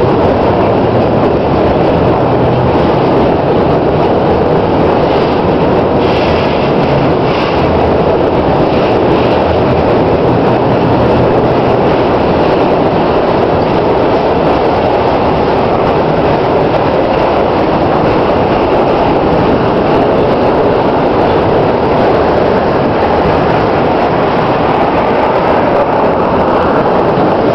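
Freight train of autorack cars rolling past at close range: the loud, steady noise of steel wheels on the rails.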